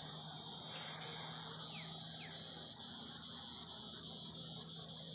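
Evening chorus of insects, a dense, pulsing high-pitched trill, over a steady low hum from an air conditioner. Two short falling chirps about two seconds in.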